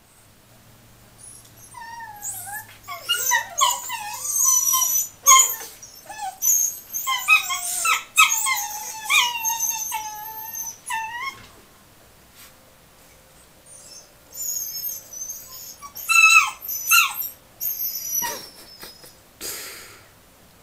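Two puppies play-fighting, making a run of high-pitched yips and whiny squeals, then a quieter spell and a second shorter run of yips.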